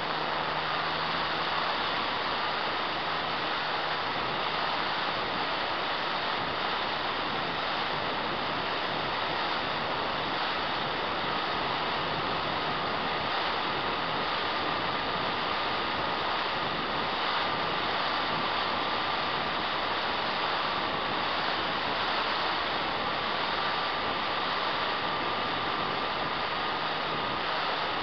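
Electric motor and propeller of an E-flite Apprentice RC trainer plane in flight, heard from a camera on the plane: a steady rush of wind and prop noise with a thin high whine that drifts slightly in pitch.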